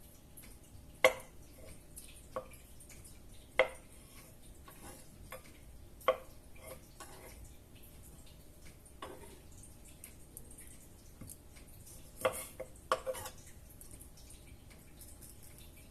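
Scattered clinks and knocks of kitchen utensils against dishes, each with a brief ring. About seven irregular strikes: the loudest about a second in and a quick pair near the end.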